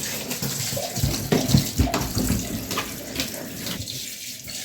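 Tap water running steadily into a single-tub washing machine, filling it for the rinse, with a few louder low thuds in the middle.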